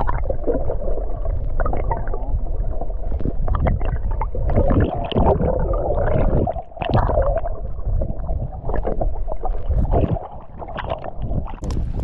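Muffled underwater sound from a submerged camera: water gurgling and rushing over the housing, with scattered knocks and clicks.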